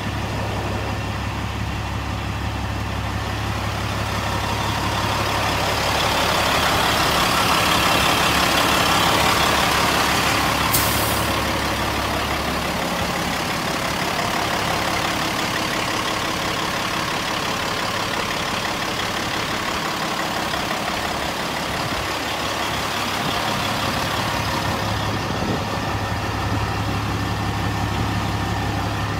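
Caterpillar diesel engine of a Peterbilt 385 truck idling steadily. The sound swells louder for a few seconds around the middle, and there is one sharp click about 11 seconds in.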